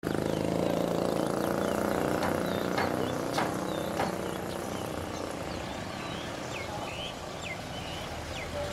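An engine running steadily and slowly growing fainter, with a few sharp clicks and some short high chirps.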